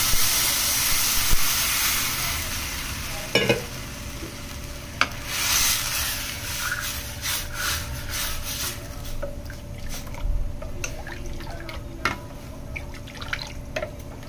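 Gram-flour kadhi batter poured into hot oil in a stainless-steel kadai. It sizzles loudly at first, and the sizzle dies away over the first few seconds as the pan fills. After that a steel ladle stirs the liquid, clinking against the pan now and then.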